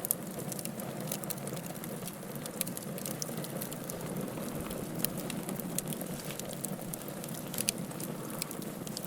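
Fire burning hard: a steady low rush of flames with frequent sharp, irregular crackles and pops.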